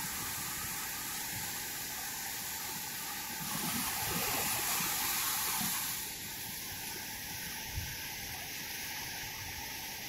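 Small sea waves breaking and washing up a sandy beach, a steady rushing hiss that swells for a couple of seconds midway and softens a little after about six seconds.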